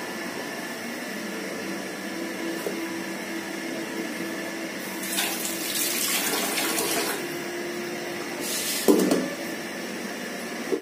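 Kitchen tap running into an aluminium pot for about two seconds midway, followed by a short splash and a clunk of the pot about a second and a half later. A steady low hum runs underneath.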